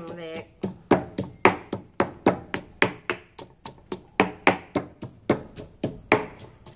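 Stone pestle pounding galangal in a stone mortar: a steady run of sharp thuds, about two to three a second.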